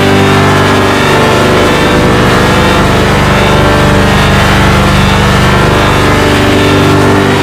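Loud, steady electronic sound effect: a dense drone of many stacked tones with a buzzing low end.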